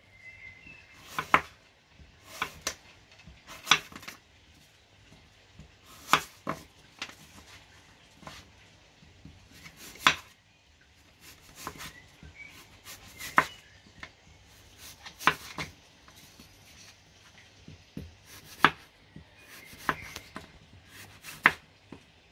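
Kitchen knife slicing apples into wedges on a wooden cutting board, the blade knocking sharply on the board at irregular intervals of one to three seconds.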